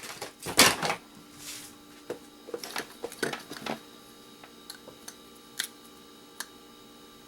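Scrap electronic parts clattering and clicking as they are handled and sorted: a few knocks in the first second, a cluster of clicks around three seconds in, then sparse light ticks.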